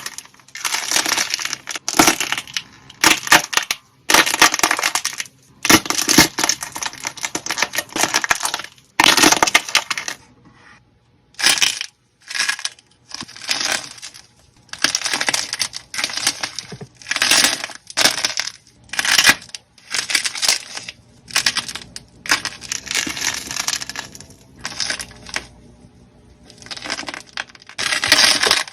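Slime being pressed and squeezed by hand over and over, each squeeze a burst of fine crackles and pops, with short pauses between.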